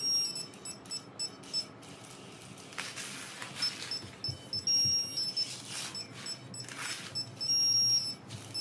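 Quiet background music with short high-pitched beeps that stop and start again and again, and a few brief whooshing sweeps.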